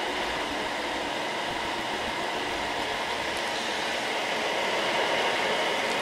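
Steady whirring rush of computer cooling fans running, with a few faint steady tones in it, rising slightly near the end.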